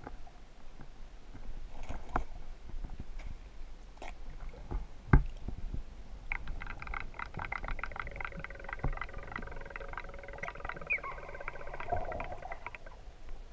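Muffled underwater sound heard through an action camera's waterproof housing on a handheld pole: scattered knocks and clicks, the sharpest about five seconds in. From about six seconds a faint steady whine with rapid ticking runs on and fades near the end.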